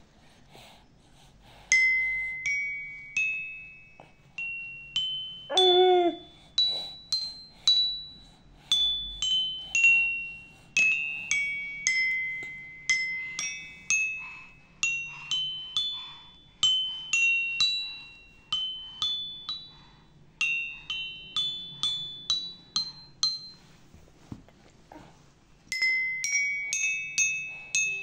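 Children's toy xylophone with painted metal bars struck one note at a time with a wooden mallet, ringing high notes in up-and-down runs, roughly two notes a second, with a short pause near the end.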